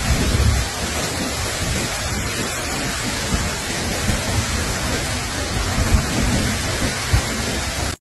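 Steady rushing noise with uneven low rumbles, strongest in the first half second.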